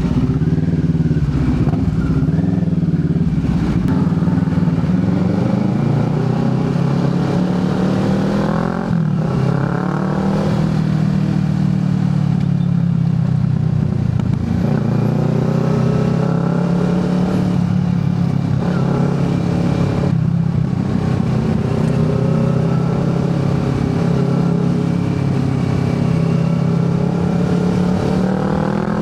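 Motorcycle engine running while riding, its pitch climbing under acceleration and dropping back several times as it shifts up through the gears.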